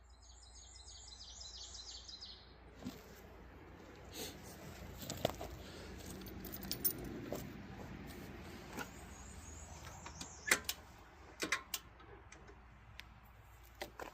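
Faint jangling and clinking of keys with scattered light clicks, as someone handles the motorcycle's keys and controls before starting it. A brief high chirping comes in the first second and a half.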